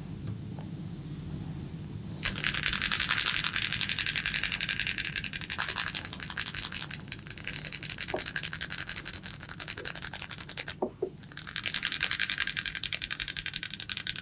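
Massage by hand in fast, dense strokes that make a rapid run of small ticks, in two long stretches with a short break near the end.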